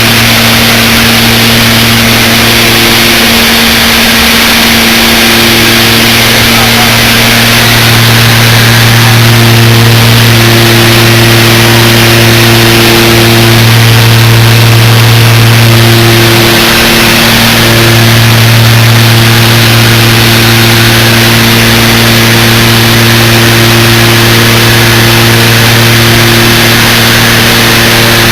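Loud, steady engine drone: a low hum with a constant hiss over it, unbroken throughout.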